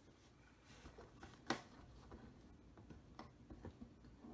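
Faint handling of a shipping package as it is opened: light rustles and small ticks, with one sharp click about a second and a half in.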